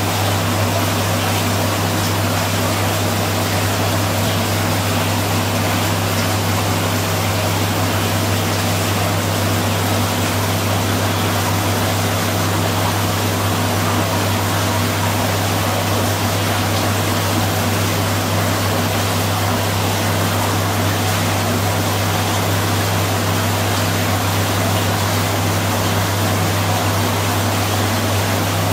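Steady aquarium pump and water circulation: an unchanging low hum under an even rushing hiss of moving water.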